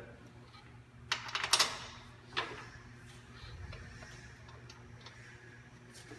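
Light metallic clicks and clinks of screws being handled and threaded in by hand on a concrete grinder's drivetrain. There is a quick cluster of clicks about a second in and a single click a little over a second later.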